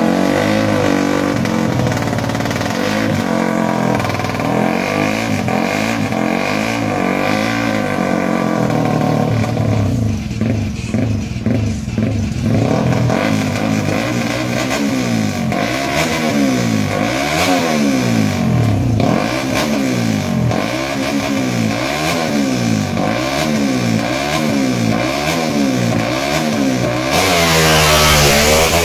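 Race-tuned drag motorcycles, a Yamaha Sniper 150 single-cylinder four-stroke among them, revved again and again on the start line, the pitch sweeping up and down about once a second. Near the end they launch, the engine note climbing and growing louder as they pull away.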